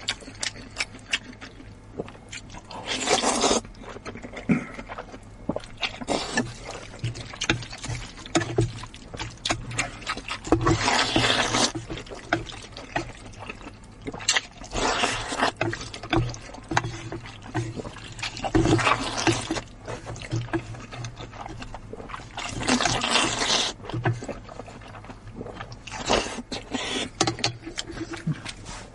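Close-up eating sounds: wide flat noodles slurped from a metal pot in a series of long, loud slurps a few seconds apart, with chewing and short clicks between them.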